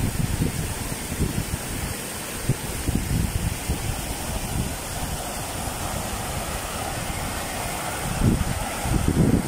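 Brown floodwater rushing and churning over flooded ground, with gusts of wind buffeting the microphone that are strongest near the end.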